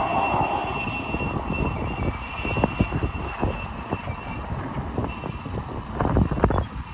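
A 7¼-inch gauge miniature train, a small locomotive hauling wooden wagons, rolling away along the track. A thin high whine fades out about halfway, and scattered clacks of wheels over the rail joints follow, more frequent near the end.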